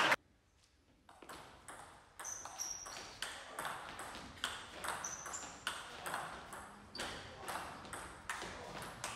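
Table tennis rally: the ball clicking off the bats and bouncing on the table, about two sharp hits a second. It starts about a second in, after a moment of quiet.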